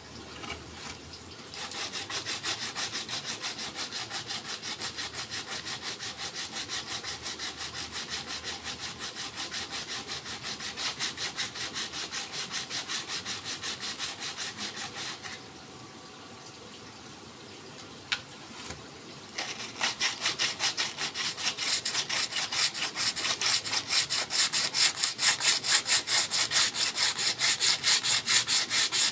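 Sandpaper being rubbed by hand over a forest red gum didgeridoo in quick, even back-and-forth strokes. The strokes stop for about four seconds in the middle, then start again louder.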